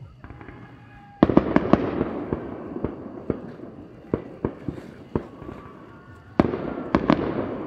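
Aerial firework shells bursting in two volleys. Each volley opens with a sharp bang and several quick cracks, then scattered pops and a slow fade. The first comes about a second in and the second near the end.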